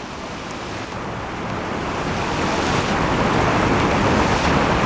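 Steady rushing of a waterfall, growing louder over the first three seconds and then holding.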